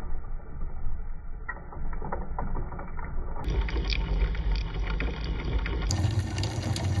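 3D-printed plastic herringbone gearbox of a DIY linear actuator running under its small DC motor: a steady whir with fine, rapid gear-tooth clicking. It sounds dull at first, then brighter about halfway in and again near the end.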